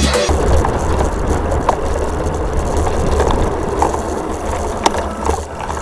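Wind rumbling on the microphone while riding, with a few light clicks and rattles.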